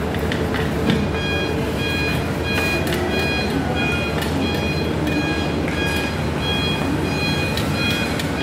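Steady rumbling background noise, with a short high tone repeating evenly about twice a second from about a second in. Scattered sharp light clicks come from the thin stainless steel rods of a drying rack being handled and fitted.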